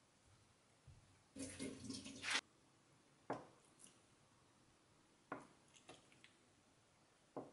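A block of soft tofu tipped wet out of its plastic tub onto a wooden cutting board, a second of splashy sliding. Then a chef's knife cuts down through the tofu, knocking on the board three times about two seconds apart, with fainter taps between.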